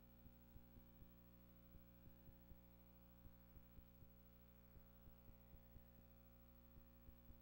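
Near silence: a faint steady electrical hum with irregular faint clicks, a few per second.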